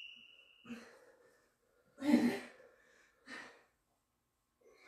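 Hard breathing from exertion during partner push-ups and squats: three or four short, forceful exhales, the loudest about two seconds in.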